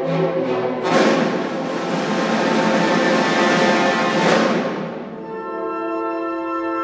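Symphony orchestra playing. About a second in, a sudden loud percussion crash rings on with another accent and dies away by about five seconds, leaving a held chord.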